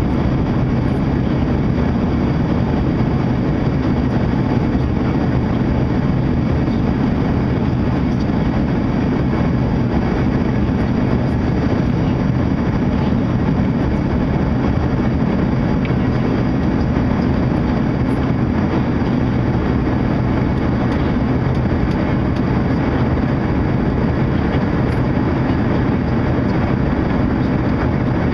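Steady cabin noise inside an Embraer ERJ-145 regional jet in flight: the low, even drone of its two rear-mounted Rolls-Royce AE 3007 turbofans mixed with airflow over the fuselage, with no change in pitch or level.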